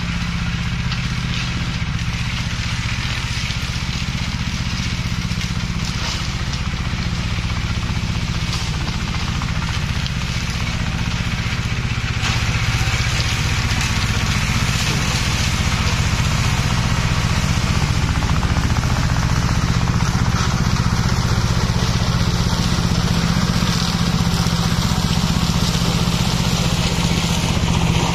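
Engine of a rubber-tracked brush mower running steadily, getting a little louder about twelve seconds in.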